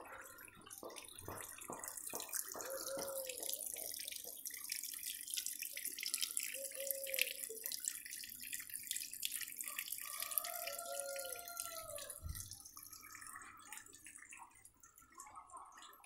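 Water trickling and splashing as it falls from one half-cut PVC pipe trough to the next in a small homemade waterfall, kept circulating by a 30-watt dishwasher drain pump.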